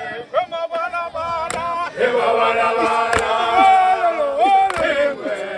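Group of men chanting and singing together: short broken shouted phrases at first, then a fuller sustained chorus from about two seconds in, with a few sharp cracks cutting through.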